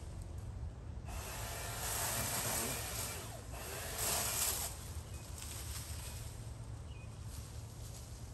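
Rustling and crackling of dry brush and leaves as someone moves through cut undergrowth, swelling about a second in and again around four seconds in, then settling to a faint hiss.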